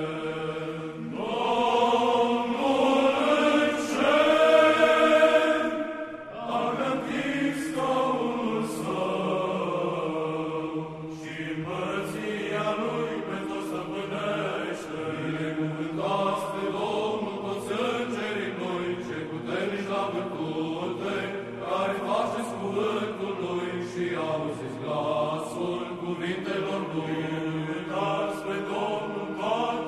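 Orthodox church chant: voices sing a slow, melismatic line with long held, gliding notes over a steady low note.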